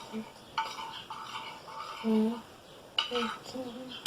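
A utensil stirring slime mixture in a bowl, scraping and clinking against the side a few times.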